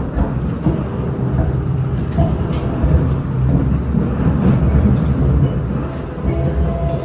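Cabin noise of a Kawasaki C751B metro train running between stations: a steady, loud rumble of wheels and motors on the track, with faint clicks and an intermittent whine.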